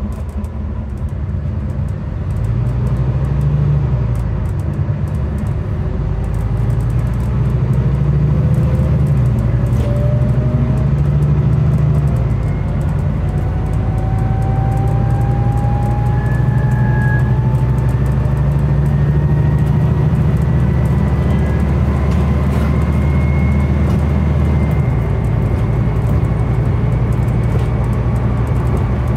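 Scania N250UD double-decker bus pulling away hard, its Scania DC09 five-cylinder diesel working up through the gears of a ZF Ecolife six-speed automatic in power mode, heard from inside the bus. The engine note steps with each change while a thin whine climbs slowly in pitch as road speed builds.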